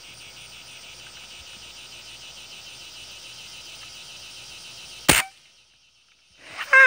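Insects chirping steadily in a pulsing chorus, then a single sharp shot from a pellet rifle about five seconds in. The chirping cuts out for about a second after the shot, and a man's voice breaks in near the end.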